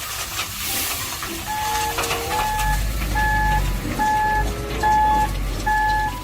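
Toy truck's electronic sound effect: a noisy engine rumble with a steady reversing beep, about one beep a second, starting about a second and a half in.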